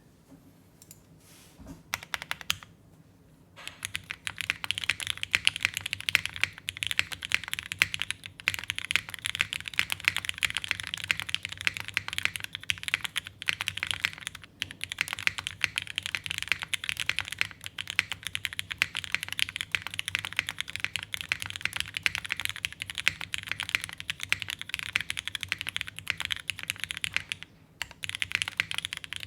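Fast continuous typing on a Geonworks F1-88 mechanical keyboard with lubed vintage Cherry MX Black linear switches, an aluminium plate and GMK keycaps, giving a dense run of clacky keystrokes. A few separate key presses come first, and the typing starts in earnest a few seconds in, with a brief pause near the end.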